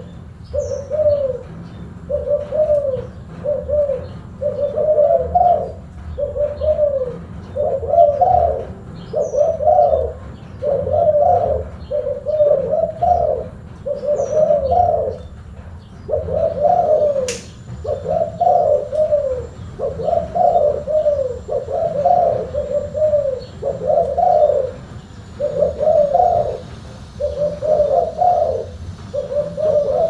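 Spotted dove cooing over and over: deep, throaty phrases of arched notes following one another closely. A single sharp click sounds about seventeen seconds in.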